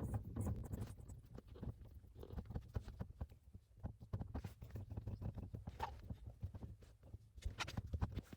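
Aftermarket shift knob being screwed onto the gear shifter by hand: irregular small clicks and rubbing, with a low handling rumble underneath.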